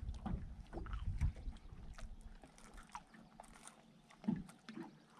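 Quiet sounds of a small boat on the water: a low rumble that fades after about two seconds, scattered light ticks, and one duller knock near the end.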